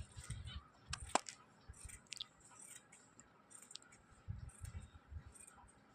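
Faint, scattered clicks and snips of tailor's scissors cutting cloth, with light handling of the fabric and a few soft thumps about four seconds in.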